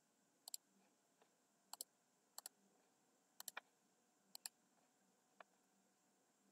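Faint computer mouse clicks, most heard as a quick double tick of button press and release, about six times at irregular intervals.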